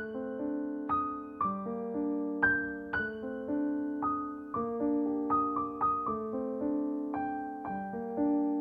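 Background music: a slow, gentle piano piece, notes and chords struck about every half second, each ringing and fading.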